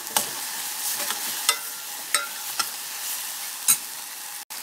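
Tomato-onion masala sizzling in a stainless steel pot as a steel spoon stirs it, the spoon clinking against the pot about six times. The sound cuts out for an instant near the end.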